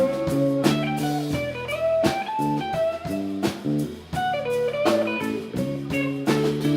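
Live band playing a blues-flavoured instrumental passage: guitar over bass and drum kit, with steady drum hits.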